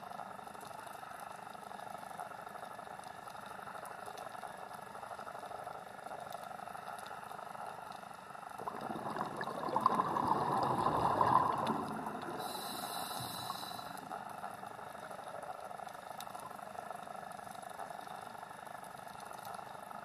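Steady underwater hiss, with a louder rush of a diver's exhaled scuba bubbles from about nine to twelve seconds in, then a brief high hiss.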